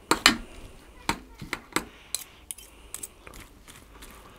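Two metal forks clicking and scraping against a stainless steel tray while shredding smoked pork neck into pulled pork. Irregular sharp clinks, about two or three a second, loudest in the first half-second and fainter after.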